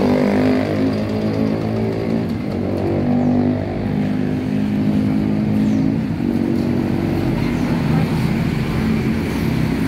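Two-wheel hand tractor's single-cylinder diesel engine running steadily as the tractor is driven at walking pace; its note steps to a new pitch a couple of times.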